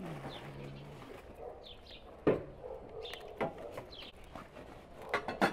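Small birds chirping over and over in short high notes. A low pitched sound fades out in the first second, and a few loud sharp cracks come about two seconds in, again a second later, and as a quick cluster near the end.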